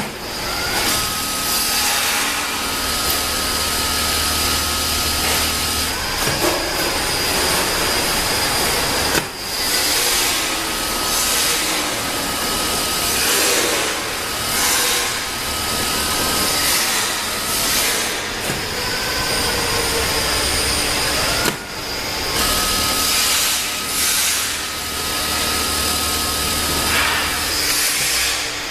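Automatic four-side pillowcase sewing machine running through its work cycle. A steady motor whine with a low hum sews for several seconds at a time, three times. Short sudden mechanical noises come between the runs.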